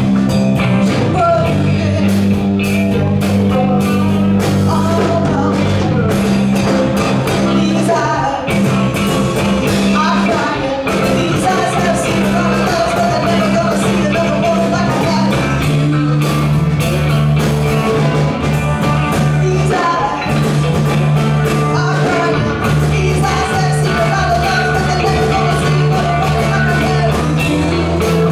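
Live band playing a rock song: a singer over guitar, a bass holding long low notes and a steady beat.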